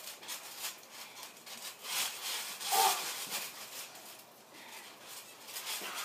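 Irregular scuffs and rubs of bodies grappling on a trampoline mat, with the trampoline giving under them; the loudest stroke comes a little before the middle.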